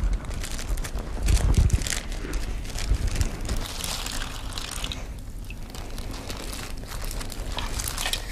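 Rustling, crinkling handling noise with scattered clicks and knocks, loudest about a second and a half in, as the displaced water is collected for weighing on a spring balance.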